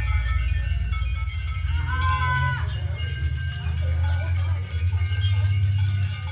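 Experimental percussion and electronics music. A steady low drone sits under many ringing high tones, with a short pitched squeal about two seconds in that slides down at its end.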